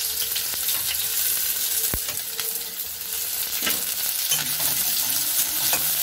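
Chopped onions sizzling steadily in hot refined oil in a metal kadai, the start of frying them. Near the end a spatula starts stirring them through the pan.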